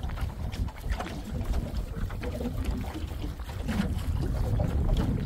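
Wind buffeting the microphone on an open boat: an uneven low rumble, with faint scattered ticks over it.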